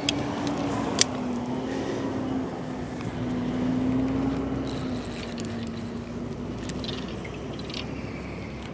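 A motor's steady drone, a single wavering hum that swells a little mid-way and fades out before the end, over outdoor background noise, with a sharp click about a second in.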